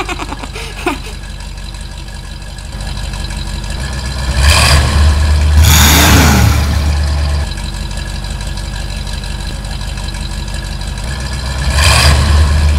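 Heavy-machine engine sound effect running with a steady low rumble, revving up louder twice: once about four and a half seconds in, and again near the end.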